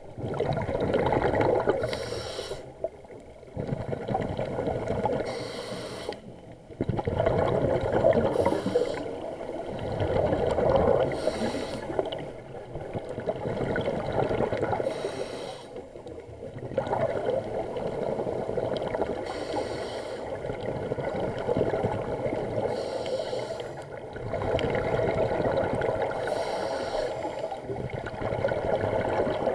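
Scuba diver breathing through a regulator, heard underwater through the camera housing: a hiss on each inhale, then a burst of bubbling exhaust on each exhale, repeating every few seconds.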